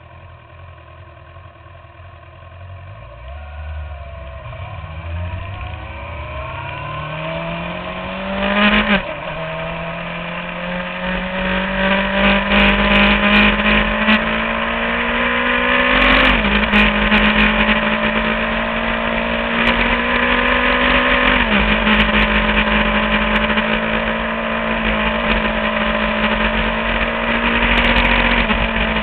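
Inline-four 600–1000 cc sport bike engine, recorded onboard, pulling away with its pitch climbing over the first several seconds. There is a quick break in the note about nine seconds in, then it holds fairly steady revs with brief dips around the bends.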